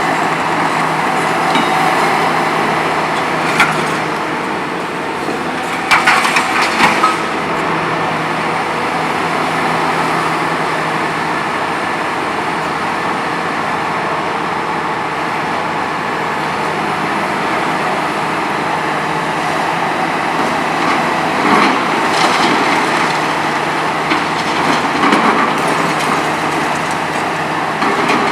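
Hitachi ZX 300LC-6 excavator running steadily while its VTN VF 23 hydraulic crusher cracks and crunches concrete. There is a cluster of sharp cracks about six seconds in and more near twenty-two and twenty-five seconds.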